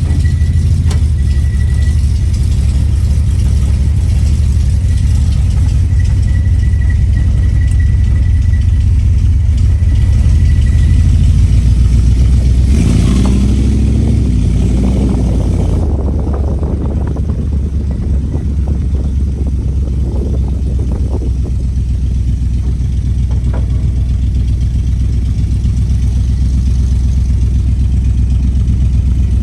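A 1970 Dodge Challenger's engine running steadily as the car is driven. Roughly halfway through, the engine note swells and shifts in pitch, then drops back a few seconds later. The engine is running fine, with no misfire.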